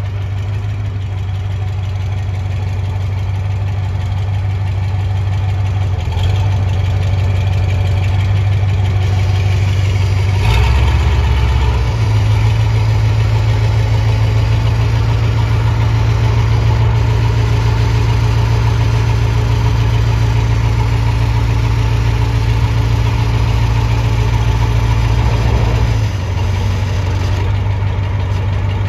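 1978 Caterpillar 613B motor scraper's diesel engine running steadily near idle. About ten seconds in it picks up and runs harder, then settles back to idle near the end.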